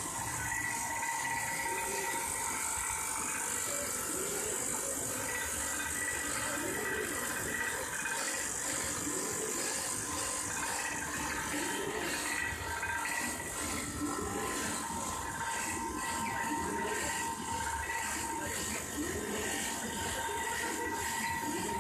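Paper tube making machine for fireworks running steadily: a mechanical whir with a steady hum and high hiss, and rattling and clicking from its gears and linkages as kraft paper feeds through the rollers.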